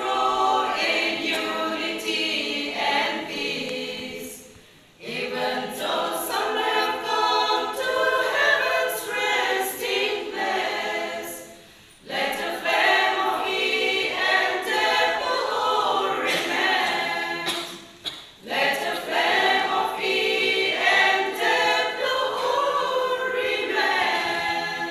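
Women's choir singing a cappella in several voices, in long phrases broken by three short pauses for breath.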